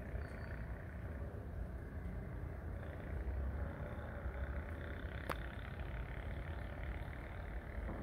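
Low, steady rumble of distant thunder with a light rain hiss, and a single sharp click about five seconds in.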